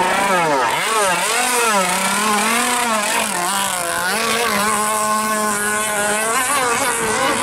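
Mini speedboat's engine running hard, its pitch swooping up and down several times and then holding a steadier high note before changing again near the end.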